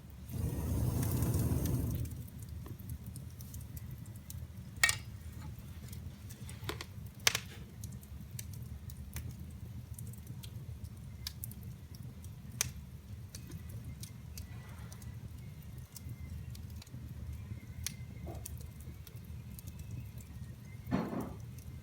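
Wood fire burning in a fireplace: a steady low rumble of the flames with scattered sharp pops and crackles from the burning wood, three of them clearly louder. A louder rushing noise fills the first two seconds, and a shorter one comes near the end.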